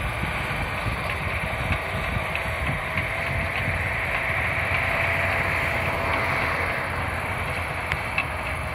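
Cat D6N crawler dozer's C6.6 ACERT diesel engine running steadily under load as it pushes soil, with a low rumble and a few small clicks from the running gear.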